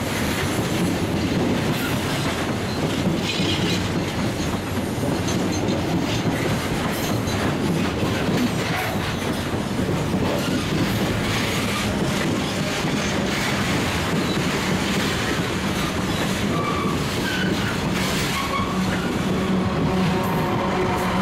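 A loaded freight train's hopper cars rolling past close by: steady wheel-on-rail rumble and clatter with repeated clicks, and a few short wheel squeals. Near the end a steady engine hum builds as a diesel-electric locomotive in the train approaches.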